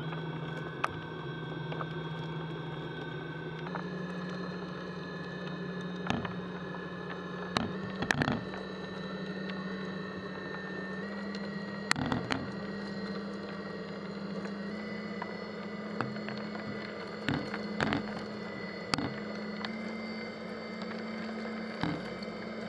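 The kinetic sculpture's motor hums steadily, its pitch stepping up several times as the machine is driven harder to raise the 'energy' of the tumbling pieces. Sharp clicks come at irregular moments as flying pieces strike the drum.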